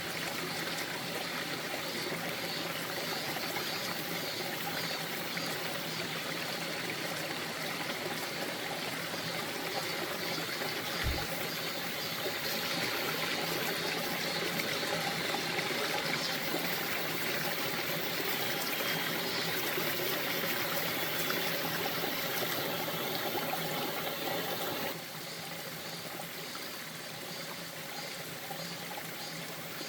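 Mountain stream running over rocks, a steady rush and trickle of water. A brief low bump comes near the middle, and about five seconds before the end the sound abruptly steps down to a quieter, softer flow.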